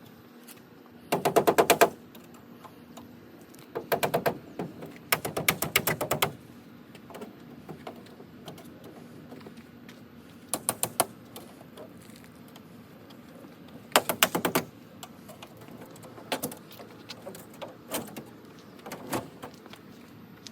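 Rapid mechanical clicking in short bursts, about fifteen to twenty clicks a second, each run lasting under a second. The runs come five times, with scattered single clicks between them.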